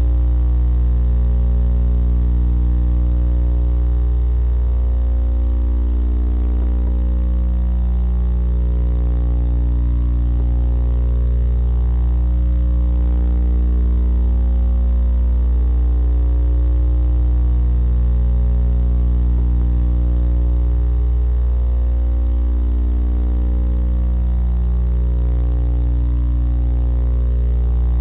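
Steady low electrical hum with an even stack of overtones, slowly wavering every five or six seconds; no owl call or movement sound stands out over it.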